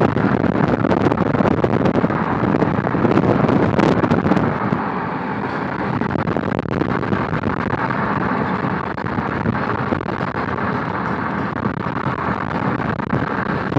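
A steady engine-like roar, somewhat heavier in the first few seconds, with a few faint clicks.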